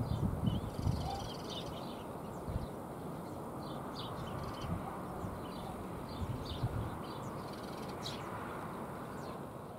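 Small birds chirping in short, scattered calls over a steady low outdoor rumble, with a few low bumps in the first second.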